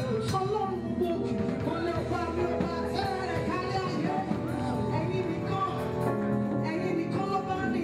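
A woman sings a gospel song into a handheld microphone, amplified through a PA, over a live band with keyboards.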